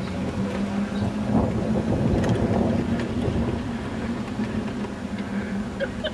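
A vehicle moving along a road: a steady low motor hum over road and wind noise. The hum fades near the end.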